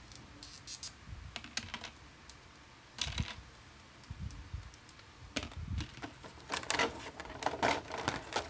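Irregular small clicks and handling noises of a plastic action figure being worked by hand as a cape is fitted onto it, busiest about three seconds in and through the last few seconds.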